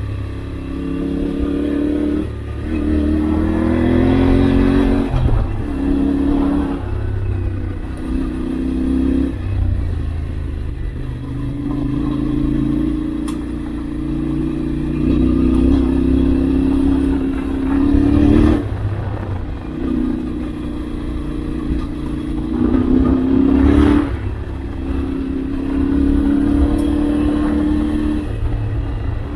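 Yamaha Ténéré 700's CP2 parallel-twin engine pulling off-road, its pitch rising with throttle and dropping sharply several times at upshifts.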